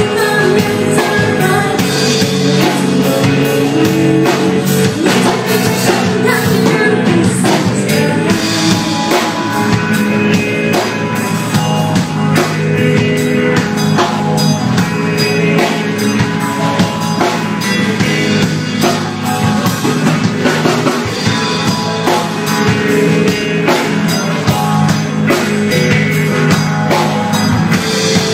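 Live rock band playing: electric guitars and a drum kit, with a woman singing lead.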